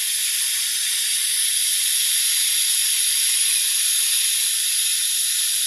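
Garden hose nozzle spraying water in a steady hiss, watering potted succulents.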